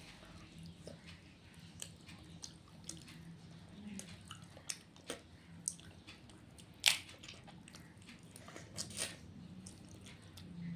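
A person eating a meal of rice and fish-head curries: quiet chewing and wet mouth clicks, with a sharper click about seven seconds in and two more near the end.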